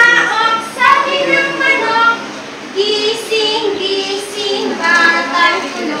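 A group of young children singing a song together, with a woman singing along.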